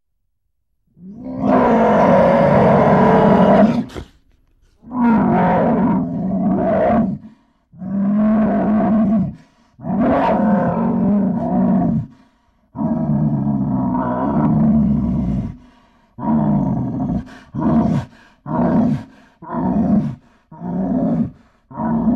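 Lion roaring: five long, deep roars with short pauses between, followed by a run of short roars that come quicker and quicker.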